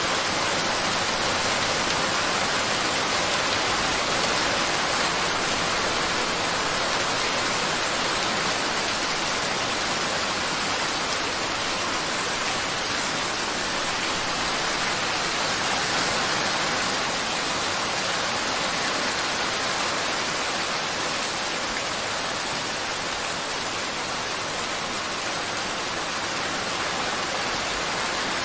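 Steady, even rain-like hiss with no tune or rhythm.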